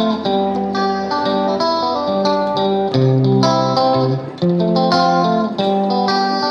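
Background music led by plucked guitar, a run of picked notes over a steady bass.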